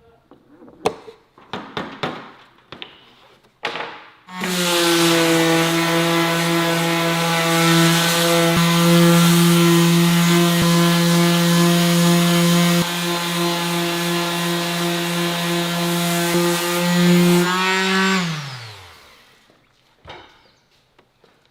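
An electric woodworking power tool starts about four seconds in and runs loudly at a steady pitch with a hissing cutting noise for about fourteen seconds. It is then switched off, its pitch falling as it spins down. A few light knocks and clicks come before it starts.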